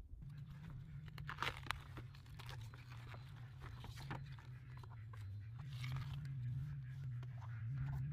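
Raw vegetables being peeled and cleaned by hand: irregular crackly tearing and crunching of dry skins and crisp leaves. A steady low hum runs underneath.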